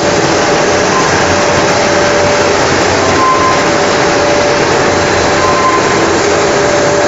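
Dog food production line machinery running: a loud, steady mechanical noise with faint whining tones, one coming and going.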